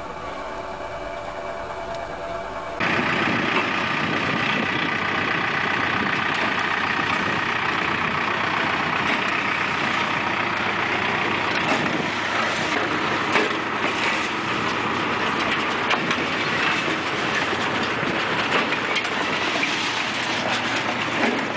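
Tractor-drawn sod harvester running: a dense, steady mechanical rattle of the cutter and conveyor over the tractor engine, with a few sharp knocks. It comes in suddenly about three seconds in, after a quieter stretch of another machine's steady hum.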